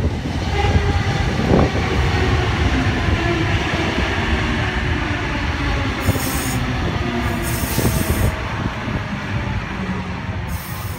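Sydney Trains Oscar (H set) double-deck electric train running past at close range: a loud rumble of wheels on the track with a whine from its motors.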